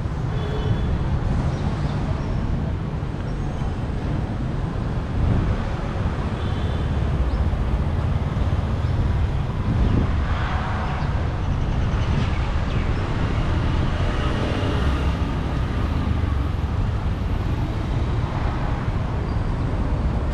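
Steady outdoor din of passing road traffic, a continuous low rumble of engines and tyres, with faint voices of people now and then.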